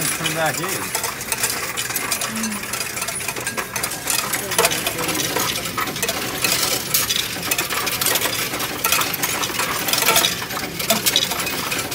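Loose coins clattering and rattling as hands push them across the perforated steel tray into a Coinstar coin-counting kiosk, a dense, continuous run of small metallic clicks as they feed through.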